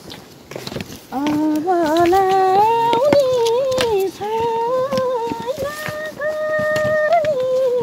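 A simple tune of long held notes that slide from one pitch to the next, starting about a second in after a quiet moment.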